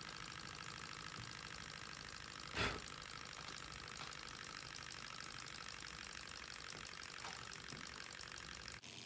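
Small model Stirling engine running, its piston and flywheel linkage making a fast, even mechanical clatter. About two and a half seconds in, a short loud puff of breath blows out the spirit-lamp flame that heats it.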